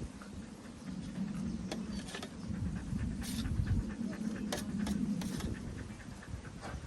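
Strong wind buffeting the microphone with an uneven low rumble, with a few scattered sharp clicks.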